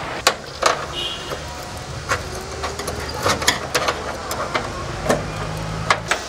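Tractor engine running steadily with a low hum, with sharp metallic clicks and knocks scattered over it.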